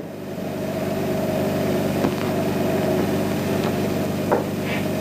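A steady machine-like hum made of several even tones, like a motor running, with a few faint clicks.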